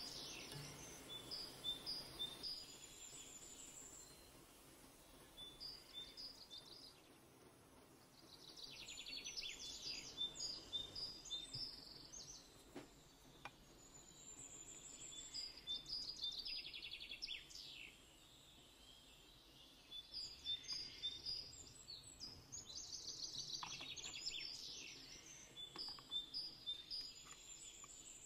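Faint bird chirping and song: short trilling phrases and repeated high chirps that come and go every few seconds.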